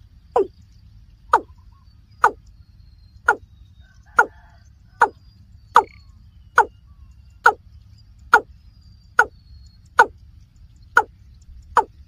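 Watercock calling: a short, hollow note that slides downward, repeated steadily about once a second.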